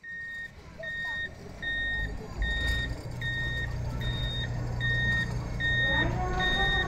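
Railway depot traverser's warning speaker giving a steady repeating beep, a little over one beep a second, as the traverser moves a train car sideways. A low steady hum from its drive comes in about two seconds in, and voices are heard near the end.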